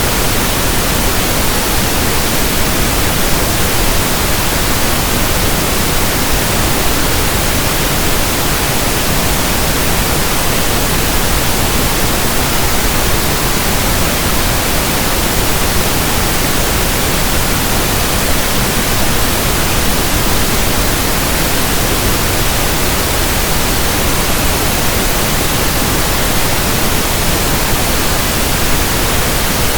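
Steady synthesized pink noise: an even, unchanging hiss across all pitches.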